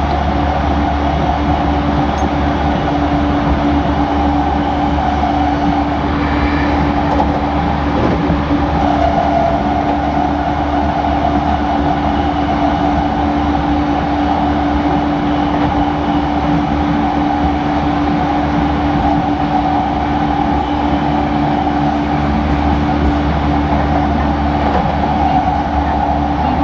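E231-series electric commuter train standing still, giving off a steady mechanical hum with one constant low tone and no change in pitch.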